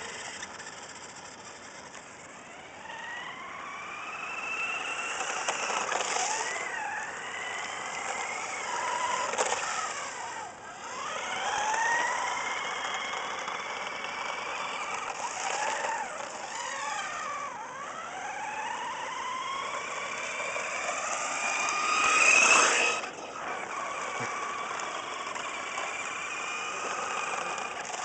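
Remote-control car's motor whining as it is driven around, its pitch repeatedly rising as it speeds up and falling as it slows. It is loudest in a brief burst about three-quarters of the way through.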